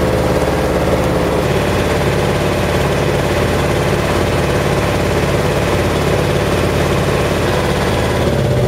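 Excursion boat's engine running steadily with a low, even drone as the boat cruises.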